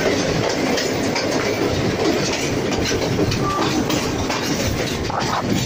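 Passenger train running along the track, heard from inside the carriage: a steady rumble with the clatter of wheels over the rails.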